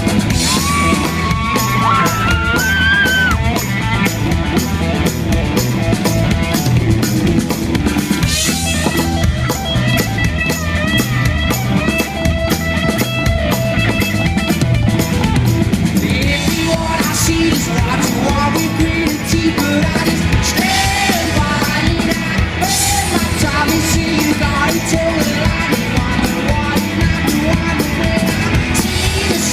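Live rock band playing: drums, bass and guitar in a steady groove, with a few high sliding notes near the start.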